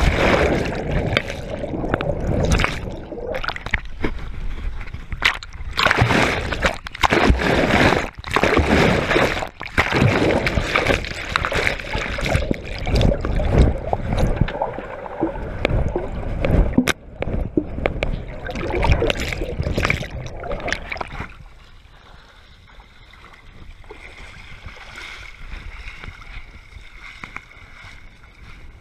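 Muddy pond water splashing and sloshing as a person moves through it, heard with the microphone going under and coming back up; loud and irregular, then much quieter after about 21 seconds.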